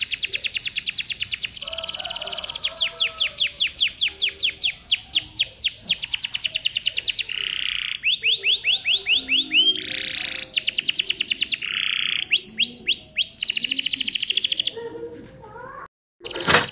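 Domestic canary singing a long continuous song of fast rolling trills, switching to a new trill type every second or two. The song breaks off near the end, and after a sharp click it starts again.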